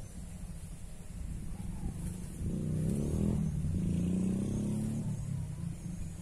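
A motor engine passing by, its pitched hum swelling from about two and a half seconds in and fading by about five seconds, over a steady low rumble.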